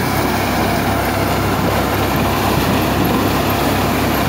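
Dasmesh paddy thresher driven by a New Holland tractor, running steadily: a continuous engine drone under the noise of the threshing drum working through paddy straw.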